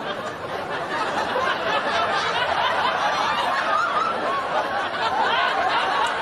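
Many people laughing, with chatter mixed in, as a steady, dense wash of voices.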